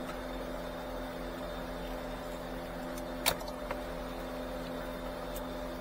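A plastic wiring-harness connector behind the dashboard clicks sharply once about three seconds in as it is unlatched and pulled apart, followed by a lighter tick. A steady low hum runs underneath.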